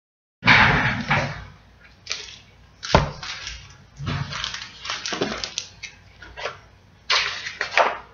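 Hardcover picture book being opened and its pages turned: several bursts of paper rustling and handling, with a sharp knock about three seconds in.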